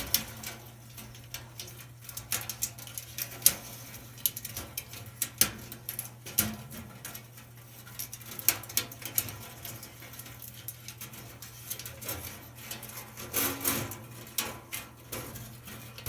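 Scattered light clicks and taps, irregular and of varying loudness, as the new coiled dryer heating element wire is handled and strung onto its sheet-metal housing and porcelain holders.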